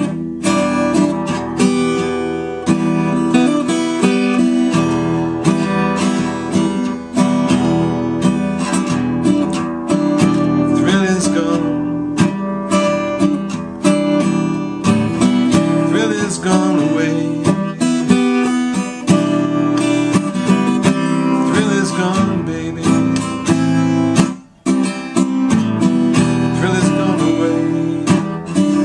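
Acoustic guitar playing a blues tune, strummed chords mixed with single-note fills. There is one brief gap in the playing late on.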